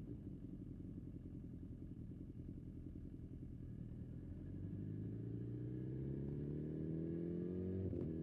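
BMW S1000XR's inline-four engine running at light throttle through a bend, then accelerating with steadily rising revs from about halfway. Near the end the pitch drops abruptly, as in a quick upshift, and the engine pulls on.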